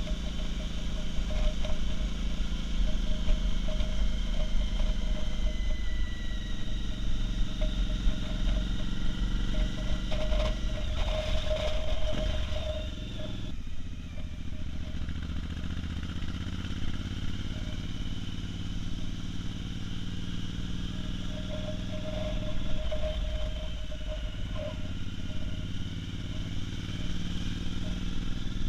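Motorcycle engine running under way as the bike climbs a winding road, heard from the rider's position. About halfway through the sound drops and stays quieter and steady.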